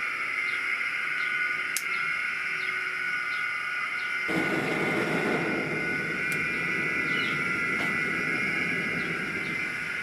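Small DC blower on a homemade pipe gas burner whining steadily; about four seconds in the gas catches and a steady rushing flame noise joins it, the burner running a gas-rich reducing flame.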